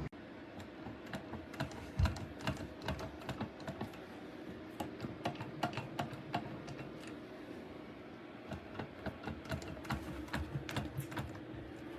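Irregular light clicks and taps of small hard parts being handled, with a louder knock about two seconds in.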